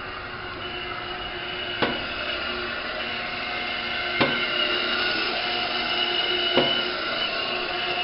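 Patterson Kelley stainless steel twin-shell V tumbling blender running, its 3/4 HP electric motor and drive giving a steady hum that grows a little louder. A sharp knock comes three times, about every two and a half seconds, as the shell tumbles.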